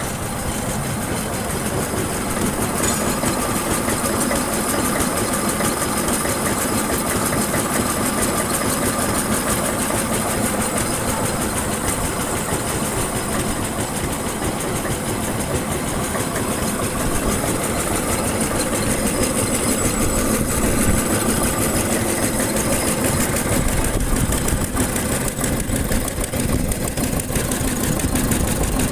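Engine of a vintage road-construction machine running steadily, with a fast, even pulsing beat that grows a little louder in the second half.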